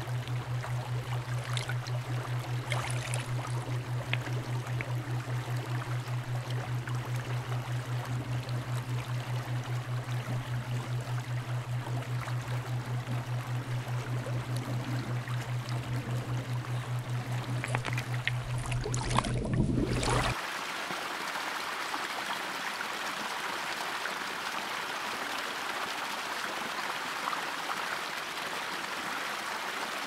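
Shallow river water flowing, with a low pulsing drone underneath that swells and cuts off abruptly about two-thirds of the way through. After that, a brighter, steady rush of water is left on its own.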